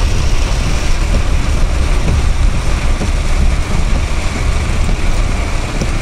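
Steady rumble of a moving car heard from inside the cabin: engine and road noise, heaviest in the low end.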